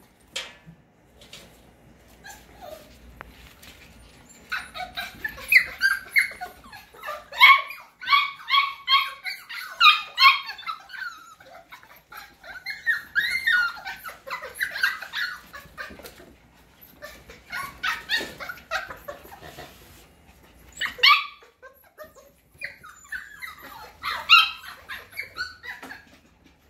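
Cockapoo puppies yipping and barking in clusters of short, high-pitched calls during rough play, on and off, with pauses between bouts. Scattered light clicks, like claws on a hardwood floor, run under the calls.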